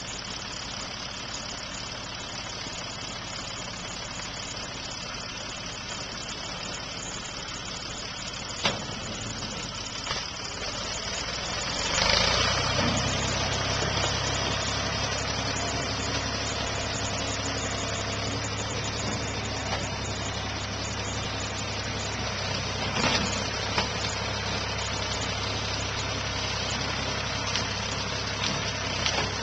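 Ford 420 backhoe's diesel engine running steadily, then speeding up and pulling harder about twelve seconds in and staying there. A few short sharp knocks stand out over it.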